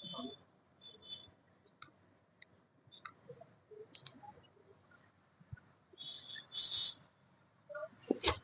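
Scattered light clicks and a sharp crack about eight seconds in, from a chiropractic adjustment, with a few short hissy, whistle-like bursts between them.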